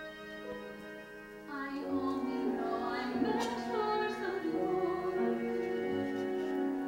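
Female solo voice singing a musical-theatre song over instrumental accompaniment, with held notes; the accompaniment swells about a second and a half in.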